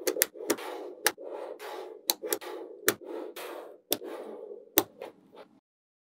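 Small neodymium magnet balls being handled and bent into a ring: a steady rattle of the balls shifting against each other, with many sharp clicks as they snap together.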